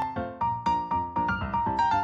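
Background music: a keyboard melody of quick struck notes, about four a second, over a held high note.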